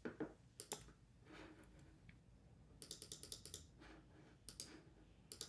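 Faint computer clicks as the resistance setting is raised: a few single clicks, then a quick run of them about three seconds in, and a couple more near the end.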